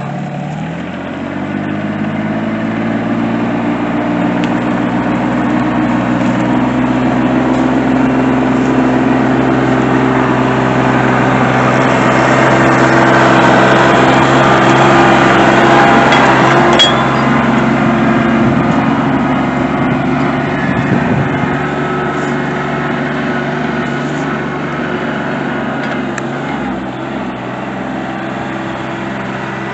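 RK24 subcompact tractor engine running steadily under load. It grows louder through the first half, then eases off a little.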